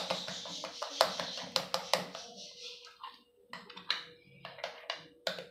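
A spoon stirring thick pizza sauce in a small glass bowl: irregular clinks and taps of the spoon against the glass with wet scraping between them, thinning out toward the end.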